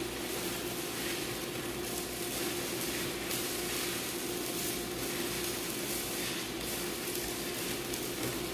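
Electric welding arc burning steadily with an even crackling sizzle, a steady hum underneath.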